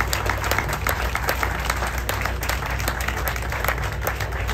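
Audience applauding: a crowd clapping.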